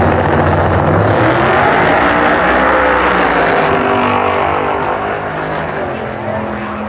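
Drag-race cars launching at full throttle and accelerating down the strip, engine noise loud at first and easing slightly as they pull away.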